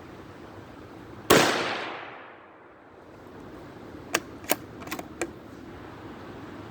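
A single shot from a Ruger American bolt-action rifle in .17 HMR, the report dying away over about a second, followed some three seconds later by a quick run of five sharp clicks as the bolt is worked. Steady wind noise on the microphone underneath.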